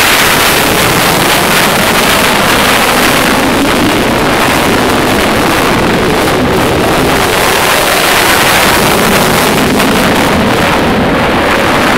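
F-16 Fighting Falcon jet engine in flight: a loud, steady roar of jet noise, its hiss thinning slightly near the end.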